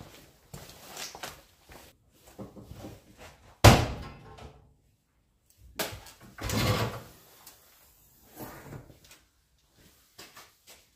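Irregular knocks and clatter of tools and parts being handled during dismantling work, with a sharp bang about four seconds in and a second sharp hit followed by a longer clunk a couple of seconds later.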